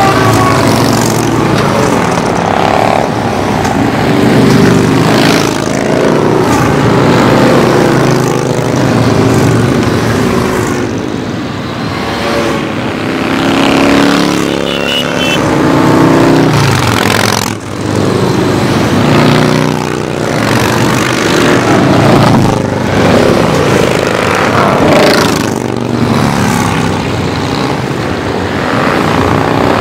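A steady stream of cruiser motorcycles and motorcycle trikes riding past one after another, their engines running together in a loud, unbroken sound. It swells every second or two and drops in pitch as each bike goes by close.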